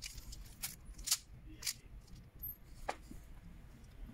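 About four sharp, separate plastic clicks spread over a few seconds as keycaps are pried off a desktop keyboard and handled.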